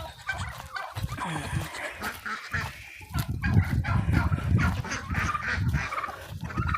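Backyard poultry calling, mostly honking waterfowl, with repeated knocks and rustles close to the microphone.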